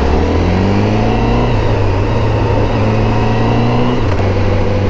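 Honda CBR1000RR-R Fireblade SP's inline-four engine through its Akrapovic exhaust, pulling with a slowly rising pitch, then dropping to a lower steady note about four seconds in at a gear change.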